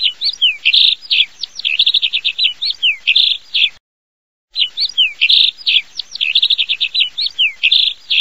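A recording of bird song played back: a busy phrase of chirps, rapid trills and down-slurred notes lasting nearly four seconds, then after a short break the same phrase again.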